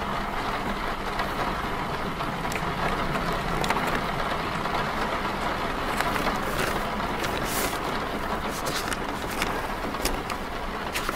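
Steady rumble of vehicles and road traffic heard from inside a car on a rainy night, with a hiss of rain and scattered sharp ticks throughout.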